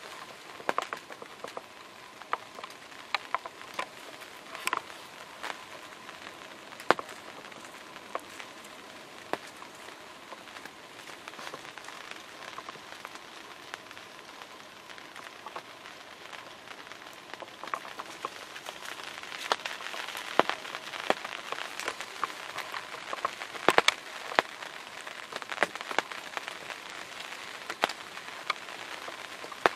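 Rain falling on a ground blind: a steady hiss with many sharp, scattered taps of single drops. The rain gets heavier about two-thirds of the way through, then eases a little.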